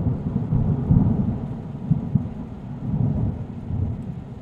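Low rolling rumble of thunder, swelling and fading several times.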